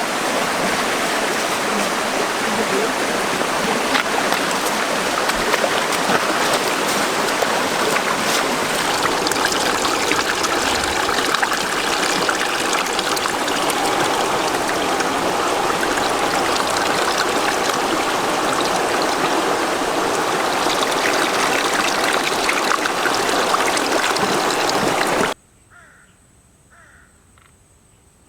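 Steady rush of water from a waterfall. It cuts off abruptly near the end, leaving only a faint steady high tone.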